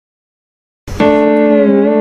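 Digital silence, then about a second in a sound-effect clip starts: a short noisy attack followed by one loud held musical note whose pitch wavers more and more in a vibrato.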